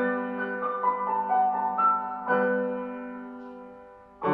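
Piano intro jingle. A chord is struck, a few melody notes follow, then a second chord about two seconds in rings on and fades away.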